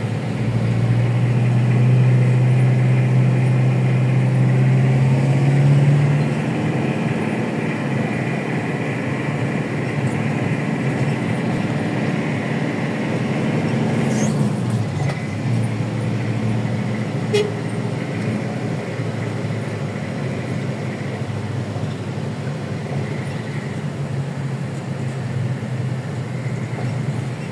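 A car driving through city traffic, heard from inside the cabin: steady engine and road noise, with a low engine hum that is loudest for the first six seconds and then eases. A single sharp click comes about seventeen seconds in.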